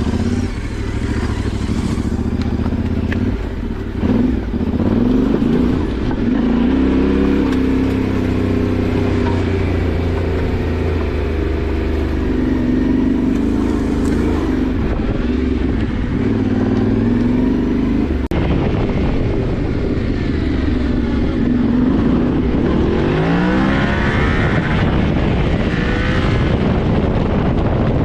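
Yamaha Ténéré 700's parallel-twin engine running under way off-road, its pitch rising and falling with the throttle, with a sharp rev-up about 23 seconds in.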